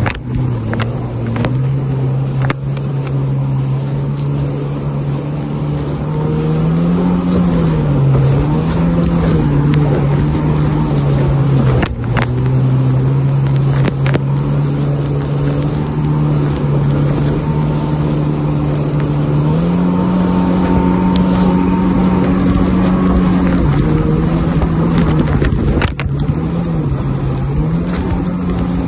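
Jet ski engine and jet drive running at speed on open water: a steady drone whose pitch steps up and back down a couple of times as the throttle changes. A few sharp knocks break through it.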